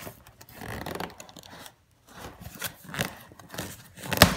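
Cardboard shipping boxes being handled by hand: flaps and sides scraping and rustling, with one sharp knock near the end.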